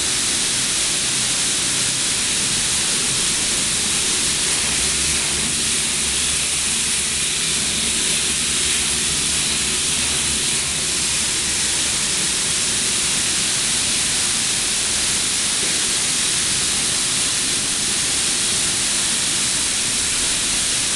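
Fish-feed pellet processing machinery running: a steady, unbroken hiss with a low rumble underneath, from the rotating flavouring drum and its motors and blowers.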